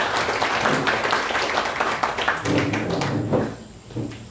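A small audience applauding; the clapping dies away about three seconds in.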